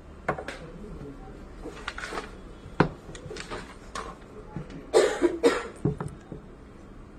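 Faint room noise with a few sharp clicks, and a short cough about five seconds in.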